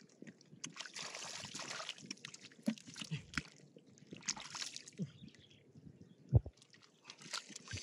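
Hands sloshing and splashing in shallow muddy water, grabbing at a catfish, in irregular spurts, with a couple of dull low thumps; the loudest comes about six seconds in.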